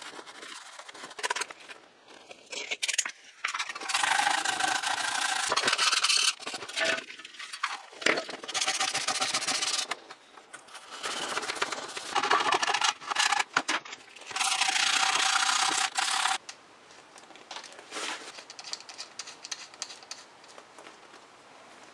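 Hand scrubbing of a toaster's sheet-metal housing: four spells of scraping rubbing, each about one and a half to two seconds long, with the last few seconds quieter.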